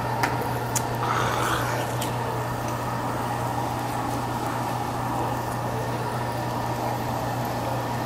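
Steady low ventilation hum of a small restaurant room, with two light clicks in the first second and a brief rustle about a second in.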